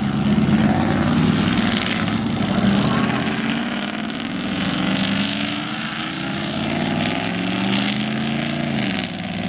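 Pickup truck engines and exhausts running loudly as the trucks drive past, a steady drone whose pitch sags and then climbs again later on as they accelerate.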